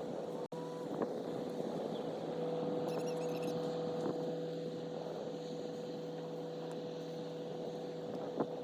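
A 2020 GMC AT4's 3.0-litre inline-six turbodiesel runs steadily as the truck drives, with a constant whine over the engine drone. The sound cuts out for an instant about half a second in.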